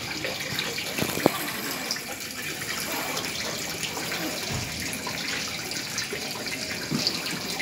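A steady, even rushing noise like running water, with one sharp click just over a second in.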